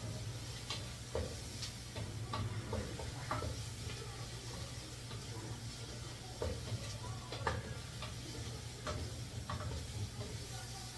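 Chopped onion and garlic frying with a steady sizzle, while a spoon stirs them and scrapes and clicks irregularly against the pan. A steady low hum runs underneath.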